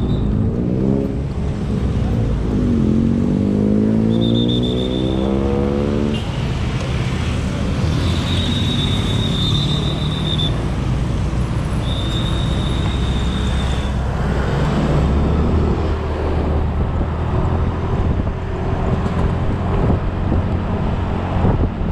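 Automatic scooter's engine pulling away and accelerating twice, its pitch climbing with the revs, then running steadily at cruising speed over road and wind noise. A thin high tone sounds on and off a few times in the middle.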